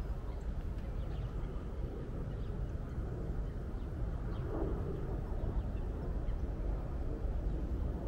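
Lakeside outdoor ambience: a steady low rumble with faint, scattered calls of ducks on the water.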